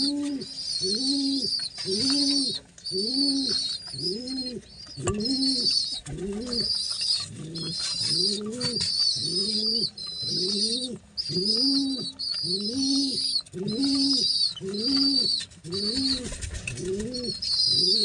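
Pigeon squabs being fed beak-to-beak by a parent pigeon: a steady, rhythmic run of low rising-and-falling calls, about one every three-quarters of a second, each with a high squeaky hiss over it.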